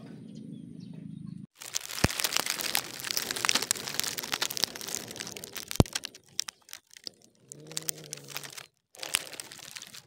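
Loud close crackling and rustling of grass stems, dense with sharp clicks, as a kitten pushes its head through the grass right by the microphone; it dies away about six seconds in. A short low call follows near the end.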